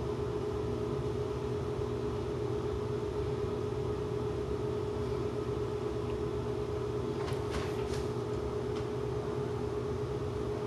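Steady mechanical hum with a constant pitched tone, like a fan or motor running in a small room, with a few faint clicks about seven seconds in.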